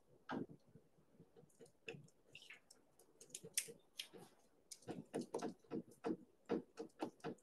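Faint, irregular clicks and taps, sparse at first and coming faster, about three or four a second, in the last few seconds.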